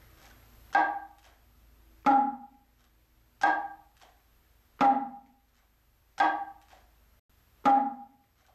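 Kotsuzumi (Japanese hourglass shoulder drum) struck by hand six times at an even, unhurried pace, about one stroke every second and a half. Each stroke is a ringing, pitched drum tone that dies away quickly.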